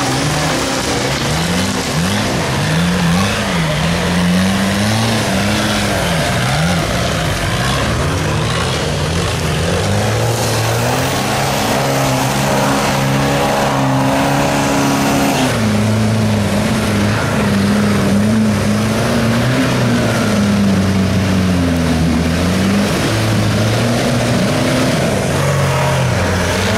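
Off-road 4x4 engine revving hard and unevenly while working through mud, its pitch rising and falling about once a second at first, held high and steady for a few seconds midway, then wavering more slowly.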